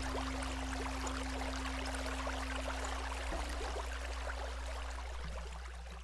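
The last held notes of a cello and acoustic guitar ring out and stop, the lower tone about three seconds in and a higher one near the end, over a steady hiss with faint crackle.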